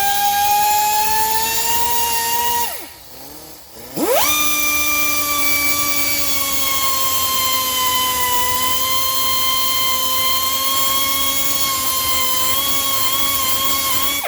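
Cutoff wheel spinning at high speed with a steady high whine, cutting through the rusted lower bearing race on a steering shaft. It stops about two and a half seconds in, starts again a second later and runs on, the pitch dipping a little now and then as it bites.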